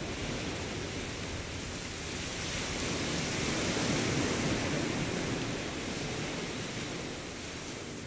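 A steady rushing noise, like surf or a wash of wind, that swells to its loudest about four seconds in and then slowly fades.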